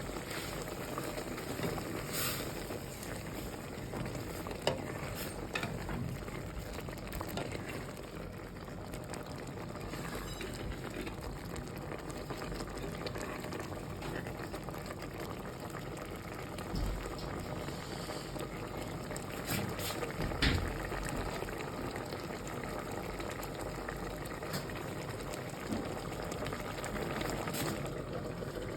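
Food cooking in a pot on the stove, a steady bubbling and sizzling, with a few short clicks here and there.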